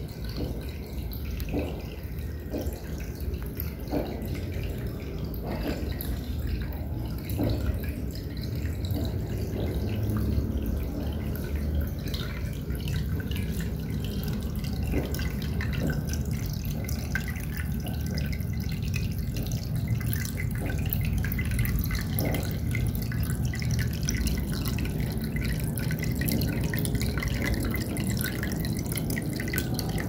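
Faucet-shaped water spout of a USB desktop aquarium pouring a steady stream into the tank, trickling and splashing with many small irregular drips and plops.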